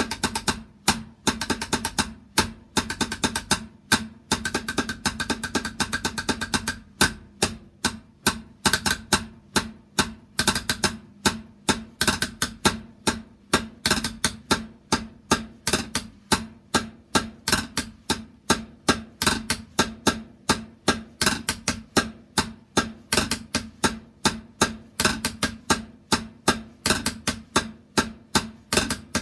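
A drum played by hand: fast rolls for the first several seconds, then a steady run of separate strikes, about three or four a second, each with a short ringing tone.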